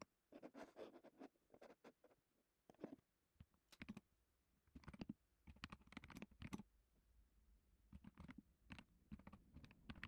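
Faint typing on a computer keyboard: keystrokes in short, irregular runs with brief pauses between them, as commands are entered into a terminal.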